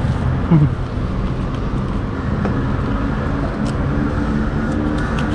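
Steady low rumble of road traffic and vehicle engines running nearby, with a brief voice sound about half a second in and a few faint clicks.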